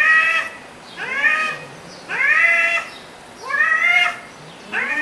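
Cat meowing over and over in a face-off with another cat: about five drawn-out meows, roughly one a second, each rising in pitch and then holding.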